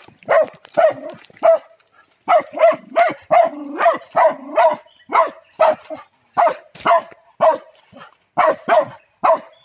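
Dog barking rapidly and repeatedly, about two sharp barks a second, with a short pause about two seconds in: baying at a civet caught in a snare.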